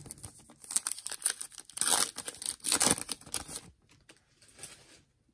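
Foil wrapper of a Donruss Optic football card pack being torn open and crinkled by hand, a run of ripping, crackling bursts that are loudest about two and three seconds in and die away about a second later.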